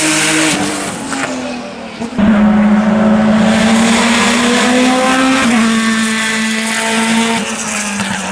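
Race car engine at full throttle on a hillclimb course. One car's sound fades away, then a second car arrives loudly about two seconds in. Its engine pitch climbs steadily and drops once, about five and a half seconds in, at an upshift, then climbs again.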